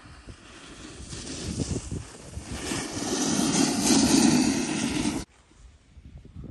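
A snowboard sliding and carving on packed snow, its edge scraping with a rushing hiss that grows louder as the board passes close. It cuts off suddenly about five seconds in.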